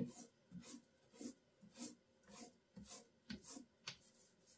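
Small paint roller rubbing over the wooden cabinet front in quick back-and-forth strokes, faint, a little under two strokes a second, spreading a thin coat of varnish from a roller that is nearly dry.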